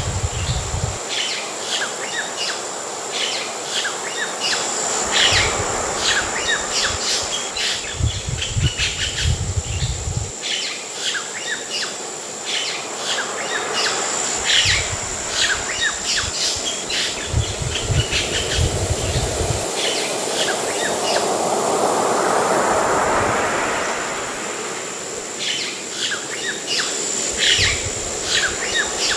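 Many birds chirping over a steady high tone, with deep rumbles coming and going several times. About two-thirds of the way through, a wave of surf swells and falls away.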